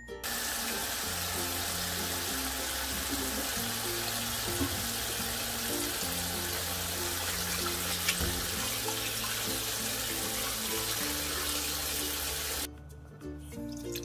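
Tap water running steadily onto soybean sprouts in a plastic colander as a hand swishes them to rinse them, then cutting off suddenly near the end. Background music plays underneath.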